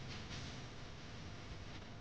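Soft squishing and rustling of hands tearing off and shaping sticky yeast dough, faint over a steady low hum and hiss.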